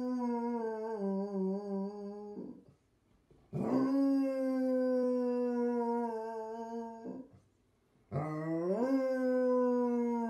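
A long-eared hound howling: three long, drawn-out howls with short breaths between. Each holds a steady pitch and then sags at the end. The last one starts with a rising swoop.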